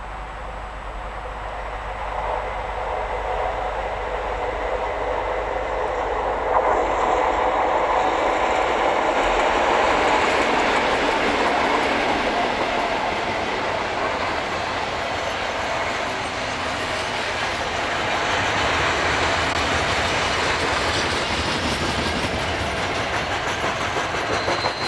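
A pair of Class 56 diesel-electric locomotives, with Ruston-Paxman V16 engines, hauling a coal train past. The train noise grows louder over the first seven seconds or so and then stays loud.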